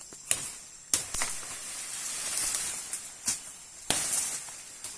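Several sharp knocks at uneven intervals, with a rustling hiss that swells in the middle.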